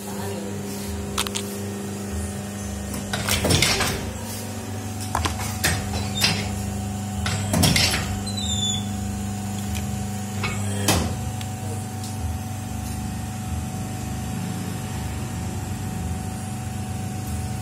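Plastic injection molding machine running with a steady motor hum, with several sharp knocks and plastic clatters over it, the loudest about three and a half seconds in and again near eight seconds, as freshly molded spinning-top parts are handled.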